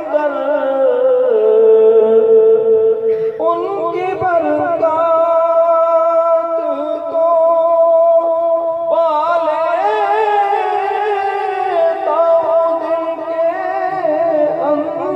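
A voice singing a naat in long, held, wavering notes, stepping to a new pitch every few seconds.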